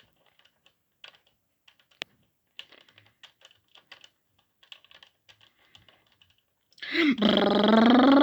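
Light plastic clicks and taps from handling a remote-control Brum toy car, then about seven seconds in its electronic engine sound effect starts suddenly and loudly: a wavering tone whose pitch dips and rises.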